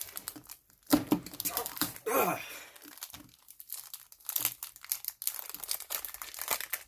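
Plastic wrapping crinkling and tearing as it is pulled off a new speedcube, in irregular crackles with a sharp, loud crackle about a second in. A short grunt about two seconds in.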